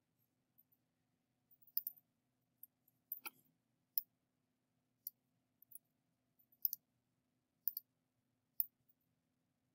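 Computer mouse clicking: a dozen or so light, sharp clicks at irregular intervals, some in quick pairs, with one fuller click about three seconds in.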